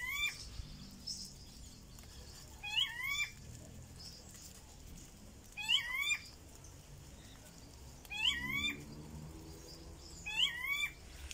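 An animal calling five times, about every two and a half to three seconds, each call a quick pair of short rising-and-falling notes.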